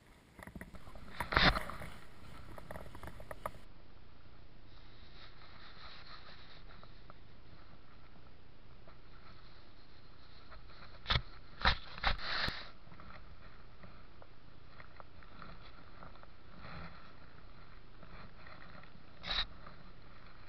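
A grey wolf close against a body-worn camera, its fur rubbing and its nose sniffing over the microphone. A few sharp knocks on the camera stand out: one about a second and a half in, a cluster of three around eleven to twelve seconds in, and one more near the end.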